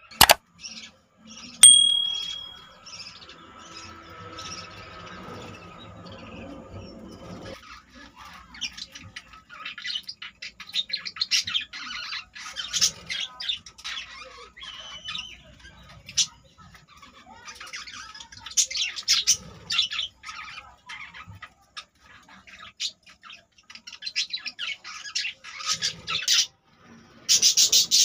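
A flock of budgerigars chattering: many rapid short chirps and warbles, growing busier after the first few seconds. About two seconds in, a sharp click with a brief ringing tone stands out as the loudest sound.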